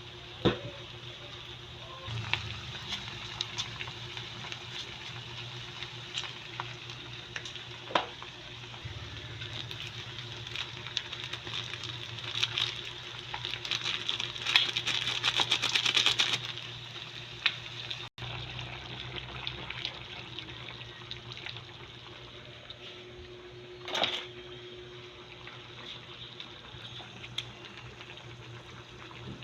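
Pork caldereta cooking in a pan: steady liquid bubbling and sizzling, denser crackling for a few seconds around the middle, with a few sharp clinks like a utensil against the pan.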